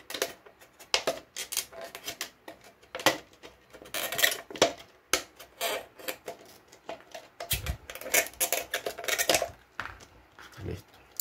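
Thin clear plastic of a cut soda bottle crinkling and clicking irregularly as it is handled and trimmed with a scalpel, with a couple of dull knocks.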